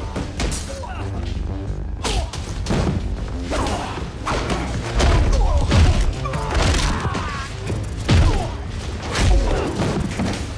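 Fight-scene blows and heavy body thuds, several hard hits, the loudest about halfway through and again near the end, over a dramatic music score.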